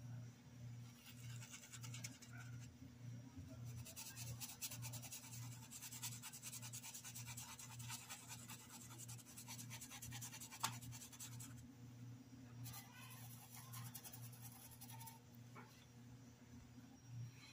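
Faint scratchy rubbing of a paintbrush scrubbing fabric paint into dish-towel cloth, in two spells with a short pause after about eleven seconds and a single small click just before it. A low hum pulsing about twice a second runs underneath.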